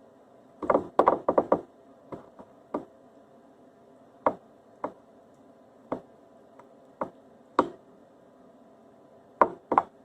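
Kitchen knife knocking on a cutting board in irregular chops: a quick run of about six near the start, then single chops every second or so, and two close together near the end.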